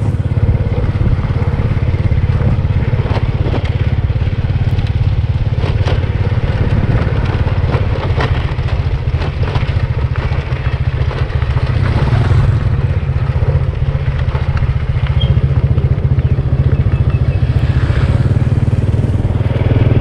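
Small motorcycle engine running steadily while riding over a bumpy dirt track, with frequent clatter and knocks from the rough ground.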